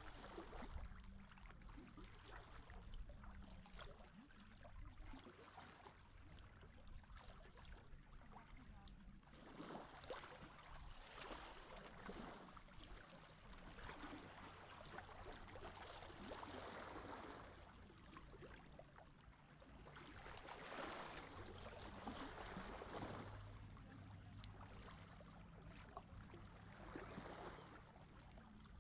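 Small sea waves washing gently onto the shore, each a soft rush lasting a second or two, every few seconds. Faint overall.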